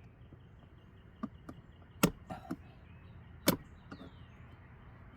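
A hand tool knocking and clicking against plastic trim retaining clips under a dashboard: two sharp knocks about a second and a half apart, with a few lighter taps around them.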